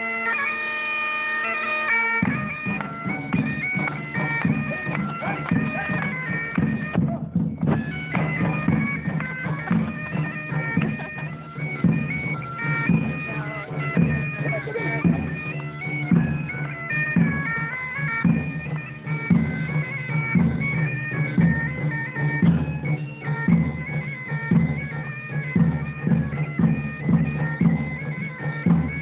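Bagpipes playing a tune over their steady drones. About two seconds in, a steady low beat joins in.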